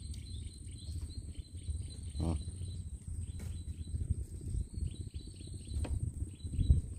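Insects chirping in quick runs of short chirps, with a thin steady high tone, over a low rumble.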